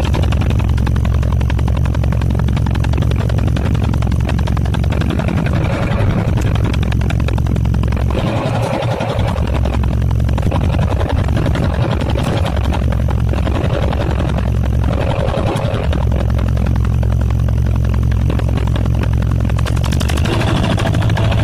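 Fishing boat's engine running steadily with a low, even drone that briefly dips twice, about eight and fifteen seconds in.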